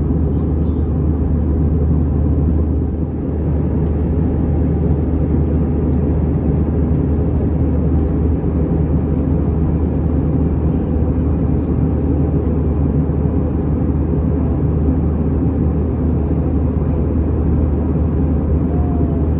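Steady cabin noise inside an Airbus A319-100 climbing out after take-off: a deep, even drone from its CFM56 engines mixed with rushing airflow.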